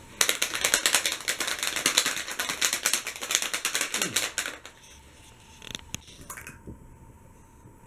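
Plastic surprise egg shaken hard, the toy inside rattling in fast clicks for about four seconds, then a few single clicks as the egg is handled.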